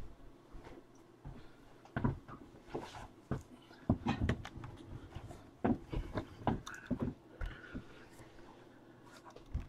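Irregular knocks, clicks and rustles of things being handled and moved about close to the microphone, busiest in the middle.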